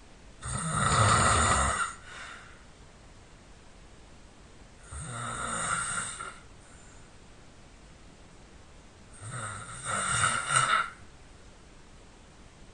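A person snoring loudly. There are three snores, each about a second and a half long, coming roughly every four seconds with quiet gaps between them.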